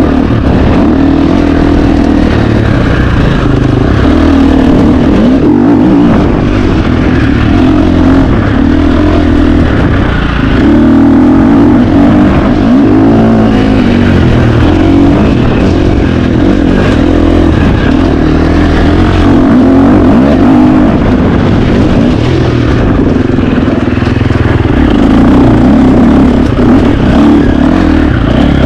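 KTM 350 XC-F single-cylinder four-stroke dirt bike engine, loud throughout, revving up and falling back again and again as it is ridden hard off-road.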